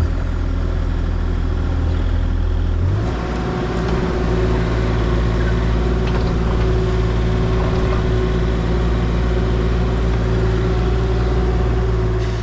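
Mini excavator's diesel engine running steadily close to the microphone while the excavator digs and dumps soil; the engine note shifts about three seconds in.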